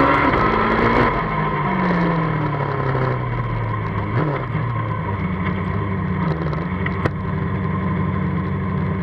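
Formula Student race car engine heard from a camera mounted on the car. The revs are high at first, fall away over the next couple of seconds as the car slows, then hold at a low, steady speed as it rolls along slowly at the end of its run.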